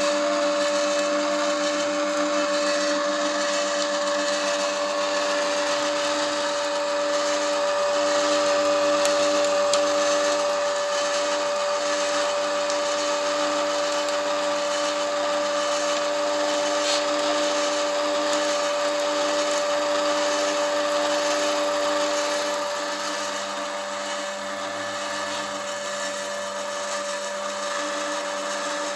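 Small electric screw oil press running steadily while it presses almonds: a constant motor hum and whine with a gritty grinding hiss as the screw squeezes out the oil and pushes out the pressed cake. It gets a little quieter about three-quarters through.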